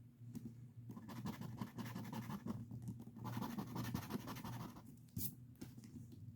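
Scratch-off lottery ticket being scraped in two stretches of scratching, each about a second and a half long, followed by a single sharp click about five seconds in.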